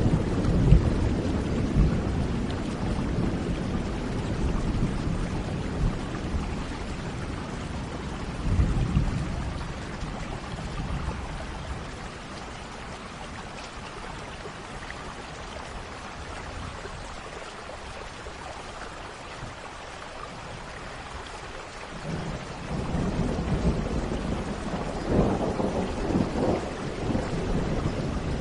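Steady rain falling through a thunderstorm, with rolling thunder: a rumble dying away at the start, a short rumble about nine seconds in, a quieter stretch of rain alone, then a new roll of thunder building near the end.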